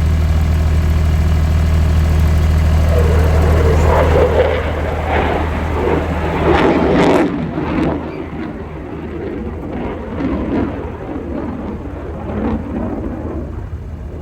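Aircraft engine noise: a loud, steady low drone that drops off abruptly about seven seconds in, leaving a quieter, uneven rumble.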